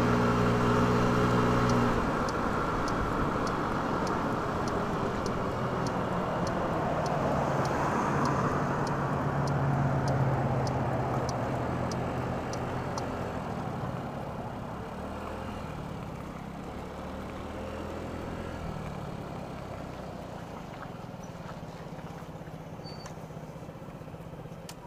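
Motorcycle engine running under way with road and wind noise, its pitch shifting with the throttle, then easing off and growing quieter over the second half as the bike slows to a crawl. A light regular ticking, about one every two-thirds of a second, runs through the first half.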